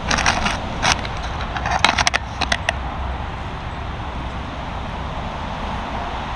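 Shallow brook running steadily over gravel and stones, an even rushing trickle. In the first three seconds a quick series of sharp knocks and clicks as the camera is handled and settled among the stones.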